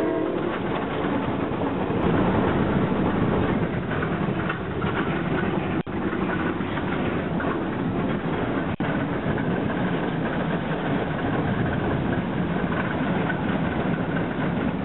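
Western Maryland No. 6 Shay geared steam locomotive working up the line, heard close from the car behind it as steady train noise of engine and wheels on rail. Just at the start, the tail of a steam whistle blast cuts off.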